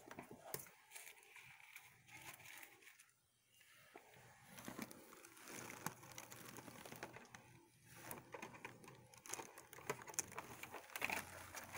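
Faint handling noise: light rustling and small clicks as compact discs are handled and taken from paper sleeves.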